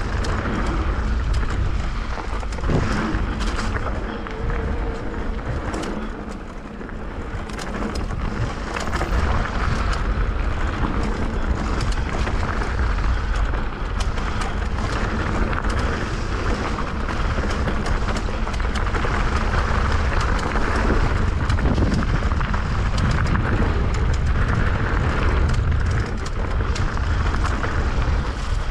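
Wind buffeting an action camera's microphone during a fast mountain-bike descent on a dirt trail, with tyres rolling over the ground and frequent small rattles and clicks from the bike. It eases briefly about six seconds in, then picks up again.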